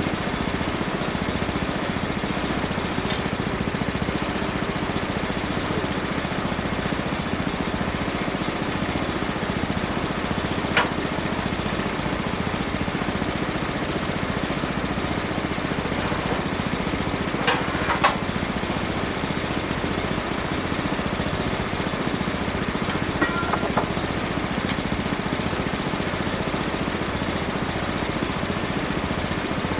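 Small gas engine of a portable bandsaw sawmill running steadily with a fast pulsing beat, with a few short sharp clicks partway through.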